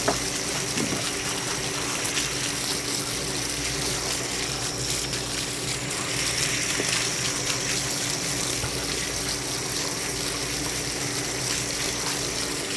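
Tap water spraying from a multi-hole hose nozzle onto cleaned abalone and sea squirts in a plastic mesh basket: a steady rush and splash as the shellfish are rinsed.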